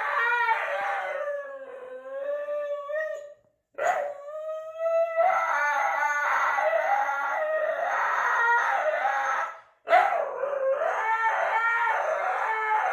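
Husky howling and 'talking' in long, wavering calls whose pitch slides up and down, broken by two short silences, about a quarter of the way in and about three-quarters in.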